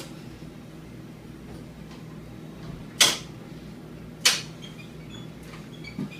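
X-ray tube mount being moved into position, with two sharp clunks about a second and a half apart and a fainter knock near the end, as the tube catches in its detents, over a steady low hum.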